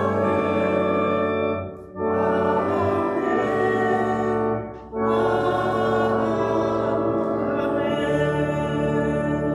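Church organ playing slow, sustained chords, breaking off briefly twice between phrases.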